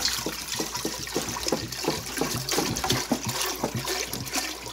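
Water pouring from a plastic jug into a stainless steel stockpot. It splashes steadily in quick, uneven pulses.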